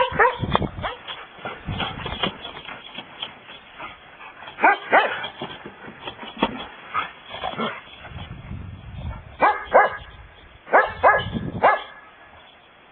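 Dogs barking and yipping in play: short, sharp barks in scattered bursts, busiest a little past the middle, with a lull near the end.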